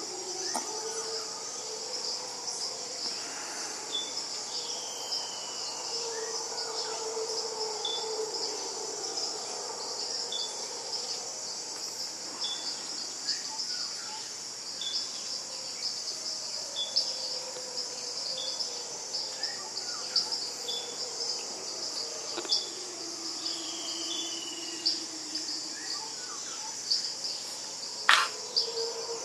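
Steady high insect chorus over the forest, with howler monkeys howling in the distance in long, low, wavering calls that rise and fade several times. A short high chirp repeats about once a second, and there is a sharp click near the end.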